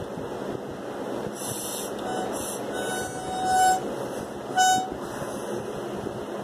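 A plastic drink bottle's spout whistling at one steady pitch as air is drawn through it at the mouth: a longer toot from about three to nearly four seconds in and a short one just after four and a half seconds.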